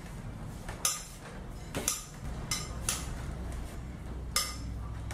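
A metal spoon knocking and clinking against an amber glass mixing bowl about six times at irregular intervals as bread dough is folded over on itself, over a low steady hum.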